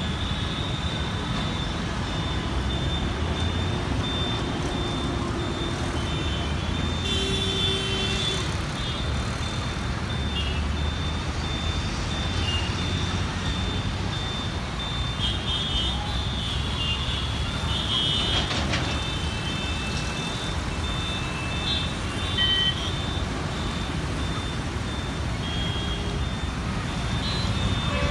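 Dense mixed city traffic of motorcycles, cars, trucks and auto-rickshaws running steadily through a roundabout, with a low engine rumble throughout. Vehicle horns honk several times, and a repeating high beep runs underneath.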